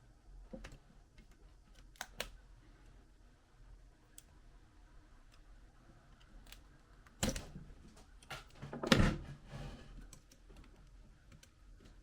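Scattered small clicks and taps of a screwdriver and loose screws on a laptop's plastic and metal parts, with two louder clatters about seven and nine seconds in.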